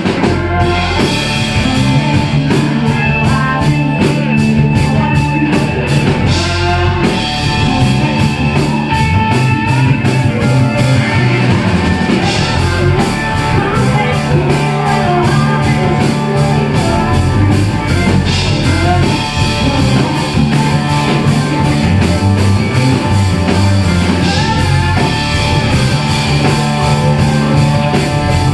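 Live rock band playing an instrumental passage of the song, with drum kit keeping a steady beat, bass guitar and a guitar carrying the melody.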